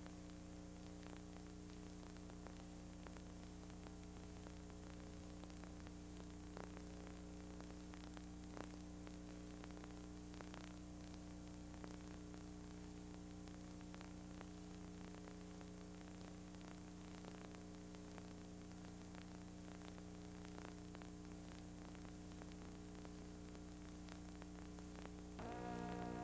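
Steady low hum and hiss, the background noise of an old video transfer, with a few faint clicks. Music comes in near the end.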